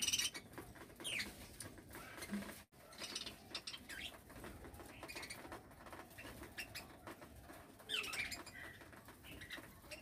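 A flock of budgerigars feeding from a bowl: a few short, high chirps now and then, the loudest near the end, over light pecking, scratching and wing fluttering.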